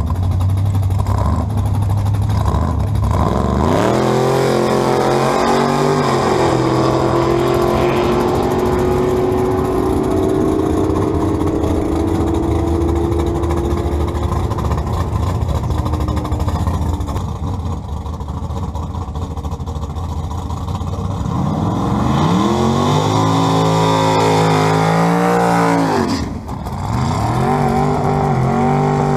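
A drag car's engine idling at the start line, then revving up hard as it launches about three seconds in and holding a high, steady note as it pulls away down the strip. After it fades, a second drag car revs up and down in a smoky burnout, with a short dip near the end before revving again.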